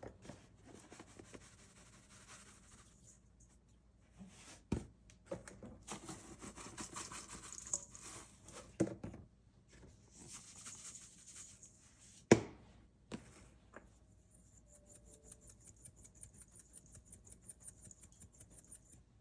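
Seasoning going onto raw chicken in several gritty, hissing bursts, with a few sharp knocks of spice containers being set down and a fine, even ticking near the end.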